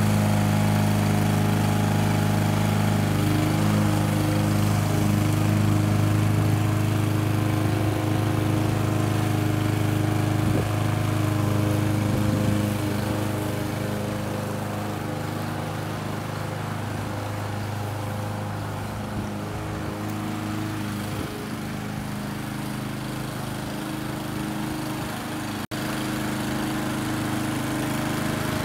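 Gas walk-behind lawn mower engine running steadily under load while mowing grass; it is louder for the first twelve seconds or so, then somewhat quieter, with a brief break near the end.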